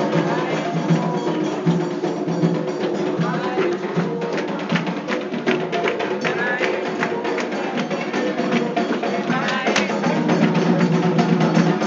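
Candomblé ritual drumming: atabaque hand drums playing a fast, dense rhythm with a struck bell, with voices joining in now and then.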